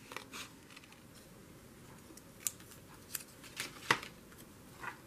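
Scissors snipping paper, a handful of separate short snips, the loudest about four seconds in.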